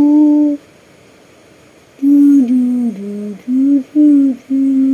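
A person humming a slow lullaby tune in long held notes with small dips in pitch. One phrase ends about half a second in, and a new one starts about two seconds in with several notes, the last held long.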